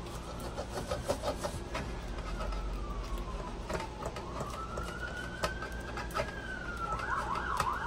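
Emergency vehicle siren passing outside: two slow rising-and-falling wails, switching to a fast yelp near the end. Light clicks of a spoon stirring melted chocolate in a metal pot sound throughout.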